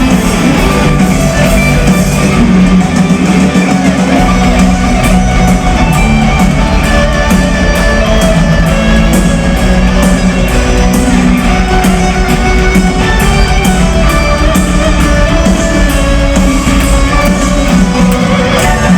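Folk-metal band playing live, loud: electric guitars over a steady drum beat, with regular cymbal hits coming in a few seconds in.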